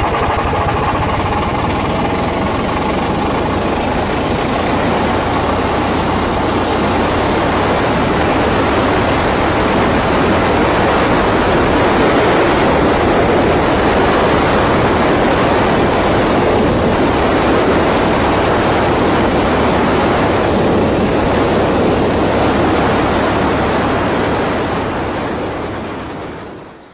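Steady, loud rush of wind and road noise heard from on board an antique steam car driving at speed, with no clear engine note; it fades out near the end.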